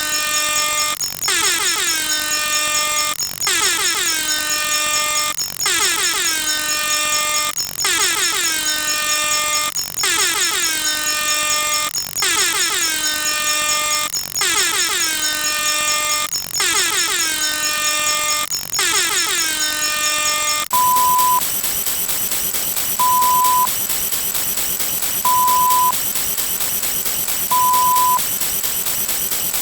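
A synthetic sound effect repeats about every two seconds, each time a stack of tones gliding down in pitch and settling. About two-thirds of the way through it changes to a steady hiss, with a short, steady beep sounding about every two seconds.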